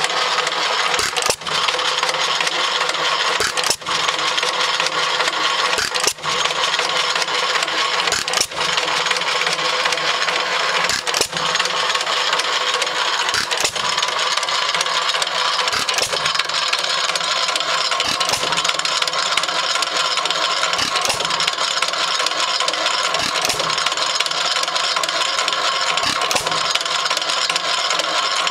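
Cooper 2 hp horizontal open-crank stationary engine running with a steady mechanical clatter, with a short regular beat about every two and a half seconds.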